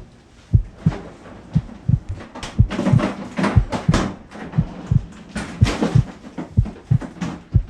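Background music built on a steady heartbeat-like bass beat: low double thumps, about one pair a second.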